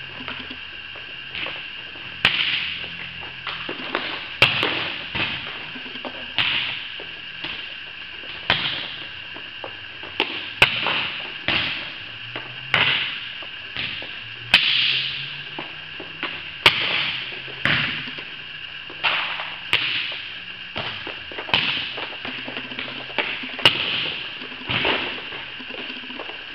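Volleyballs being struck and bouncing on a gym floor: sharp, echoing smacks about every one to two seconds during a passing drill, over a steady high hum.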